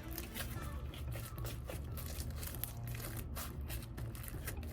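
Slime being kneaded and stretched by hand, giving a stream of small, irregular sticky clicks and crackles.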